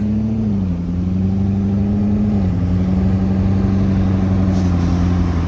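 Car engine and exhaust revved up and held at a steady speed, its note stepping down slightly twice.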